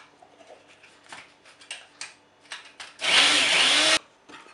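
Small electric spice grinder running for about a second, grinding poppy seeds, mustard seeds and a green chili, then cutting off suddenly. Before it, light clicks and knocks as the plastic lid is fitted on.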